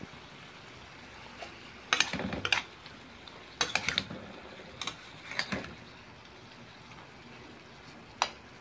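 Metal spatula scraping and clinking against a metal frying pan while stirring chicken pieces with onion and tomato. It comes in short bursts about two, four and five seconds in, with one single clink near the end, over a low steady sizzle of frying.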